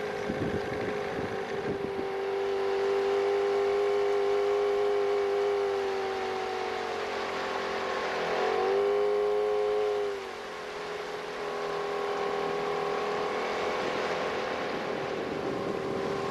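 Gasoline outboard motor pushing a small boat along at steady throttle. About eight seconds in its pitch dips and climbs again, then near ten seconds it eases off briefly before settling back to a steady drone. Wind buffets the microphone in the first couple of seconds.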